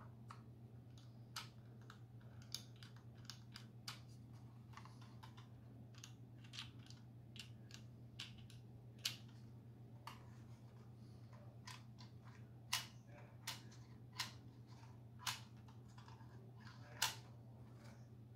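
Irregular sharp plastic clicks and taps from a plastic model railway passenger coach being handled and turned over in the hands, its bogies and body knocking against fingers. A steady low hum runs underneath.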